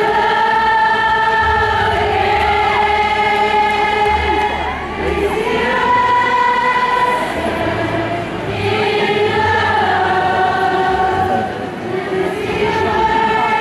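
A large concert crowd singing a melody together in long held notes, phrase after phrase.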